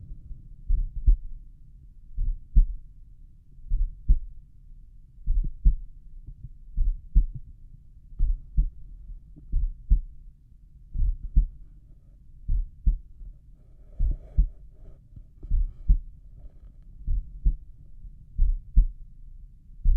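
Slow resting human heartbeat heard through a stethoscope over the tricuspid valve area: each beat a paired lub-dub, about forty beats a minute.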